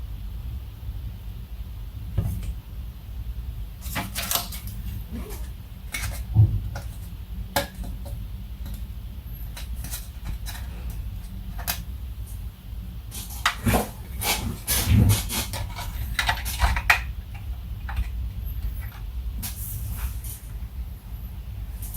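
Scattered sharp clicks and light knocks of plastic instrument-cluster parts being handled while a new gauge face is fitted, with a busier run of clicks in the middle stretch, over a low steady rumble.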